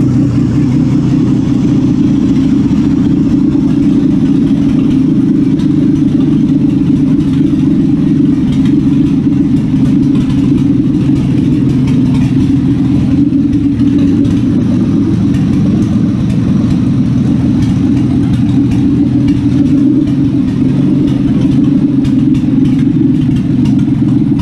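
Buick 3.8-litre V6 from a VN/VP Commodore running at a steady idle, just fired up out of the car with no exhaust fitted past the bare manifolds.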